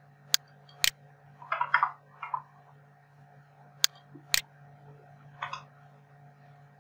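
Computer mouse clicks and keyboard keystrokes: two pairs of sharp clicks about half a second apart, with short bursts of typing in between, over a steady low hum.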